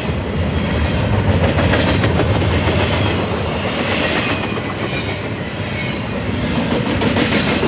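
A fast double-stack intermodal freight train rolling past, its car wheels clicking over the rail joints in repeated clusters over a steady, loud rolling noise.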